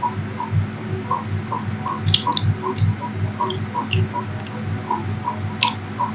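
A steady electrical hum with an even ticking throb about three times a second, with a few light clinks of fingers on metal plates about two seconds in and near the end.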